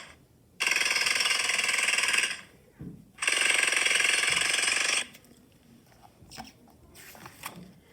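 Jackhammer breaking up pavement: two loud bursts of rapid hammering, each nearly two seconds long, with a short pause between them.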